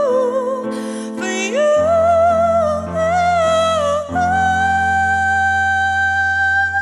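A female vocalist sings a wordless, sliding run over sustained Yamaha S90 ES keyboard chords, then holds one long final note from about four seconds in.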